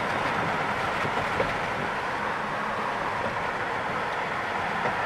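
Steady road and tyre noise of a moving car.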